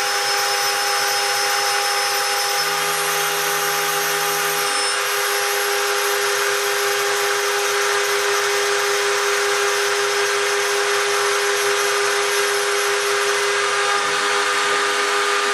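Homemade CNC gantry router engraving brass: the spindle runs steadily with a whine and a dense hiss of cutting, while fainter low tones change a few times as the machine's movement changes.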